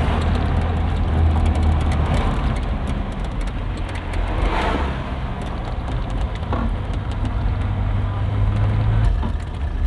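Engine and road noise inside a moving car: a steady low rumble with a passing swell of noise about halfway through.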